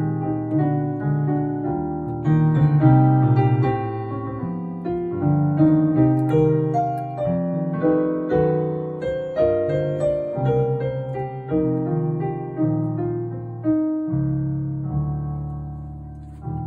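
Yamaha PSR-SX900 arranger keyboard on a piano sound, played at a slow pace in chords under a melody. Each note rings and fades, and a final chord is struck near the end.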